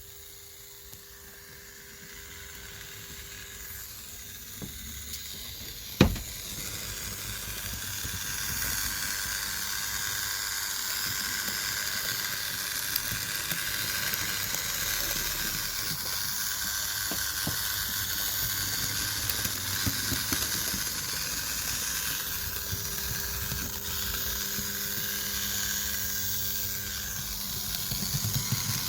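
Fleischmann BR 51 model steam locomotive running at high speed: the motor in its tender makes a loud whirring, hissing noise that builds over the first several seconds and then holds steady. This running noise is the fault being shown, which is thought to come from a dry motor driveshaft that may need sewing machine oil. One sharp click about six seconds in.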